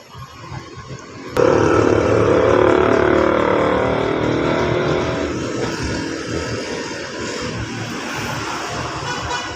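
Mercedes Vito van engine starting about a second and a half in after a quiet build-up. It flares up loud for a few seconds, then eases down to a steady idle.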